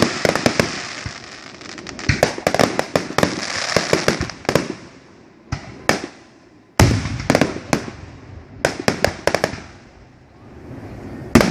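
Aerial fireworks going off in quick succession: sharp bangs and clusters of cracks from bursting shells. The firing thins to a few single cracks past the middle, then starts again with a loud bang about seven seconds in, and another loud bang comes near the end.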